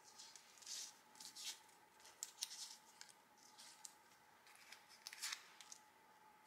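Painted paper circles being picked up, slid and shuffled against one another on a wooden tabletop: a few short, faint, dry rustles and scrapes, the crispest about five seconds in, over a faint steady hum.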